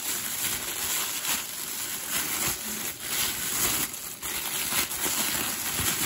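Thin plastic wrapping crinkling and rustling irregularly as hands pull and fold it off a boxed part.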